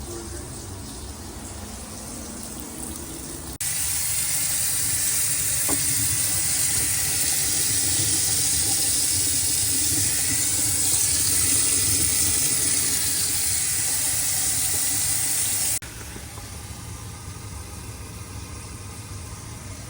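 Water rushing hard through a plumbing fixture as the drains are tested, a loud steady hiss that starts abruptly a few seconds in and cuts off abruptly near the end, over a low steady hum.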